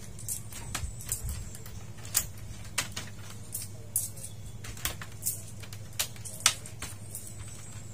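Irregular sharp clicks and light taps, about a dozen, as metal tweezers pick at the small plastic LED lens caps on an LED TV's backlight panel. A steady low hum runs underneath.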